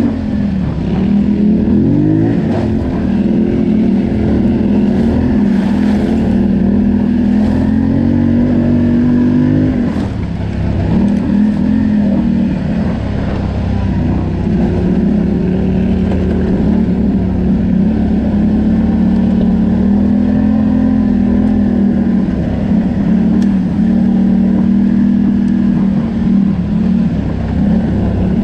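ATV engine running under way, its pitch rising and falling as the throttle is worked, with a brief drop about ten seconds in.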